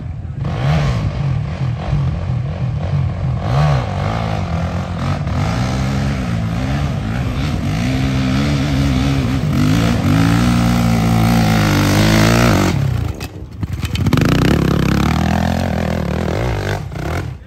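450cc dirt bike engine revving hard as it climbs a steep dirt hill, the pitch rising and falling again and again as the throttle is worked. The sound dips briefly about 13 seconds in, then comes back with more hard revving.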